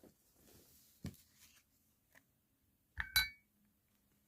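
A utensil knocking on a dish: a dull tap about a second in, then two quick clinks that ring briefly, about three seconds in.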